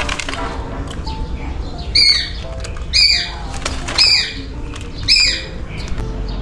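Shikra calling: four short, shrill, falling calls about a second apart, over background music.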